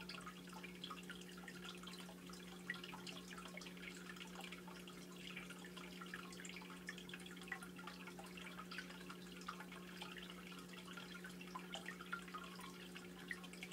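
Faint saltwater aquarium running sounds: a steady low pump hum under small, irregular drips and trickles of circulating water.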